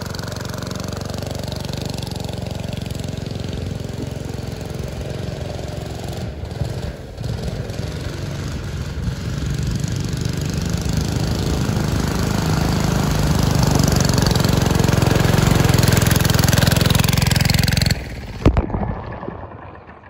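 Small single-cylinder 196cc diesel engine on a go-kart running under load as the kart drives through mud and water. It grows louder from about eight seconds in, then cuts off suddenly near the end, followed by a couple of sharp knocks.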